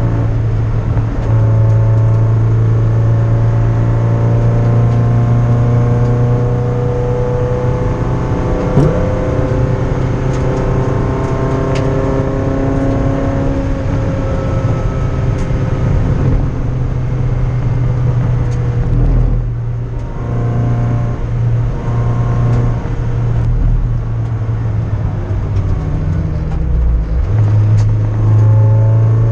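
MGF race car's engine heard from inside the cockpit at speed on track, its pitch rising and falling as it is driven through the gears, easing off briefly about two-thirds of the way through before pulling again.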